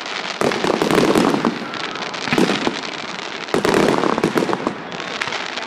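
Aerial fireworks bursting overhead, with dense crackling throughout. Fresh bursts come about half a second, two and a half, and three and a half seconds in.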